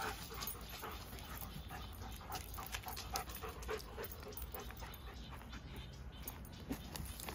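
Dogs panting hard during rough play, with a few short whimpers.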